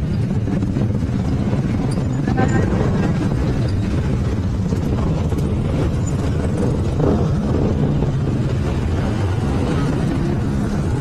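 Motorcycle engine running steadily during a ride, with road noise.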